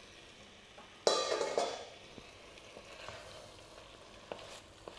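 Diced pheasant sizzling in hot curry paste in an enamelled pot as it is stirred with a wooden spoon. A sudden louder burst of sizzling about a second in fades over the next second into a steady low sizzle, with a few light knocks near the end.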